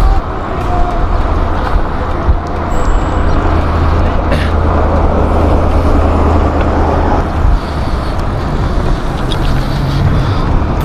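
Steady rushing noise of wind and passing road traffic picked up by a handlebar-mounted camera on a moving bicycle, with a heavy low rumble that eases about seven and a half seconds in.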